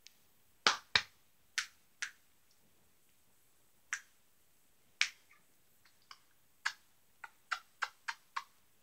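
Fingers snapping: about a dozen sharp snaps, a few at first and then a quicker run of them near the end.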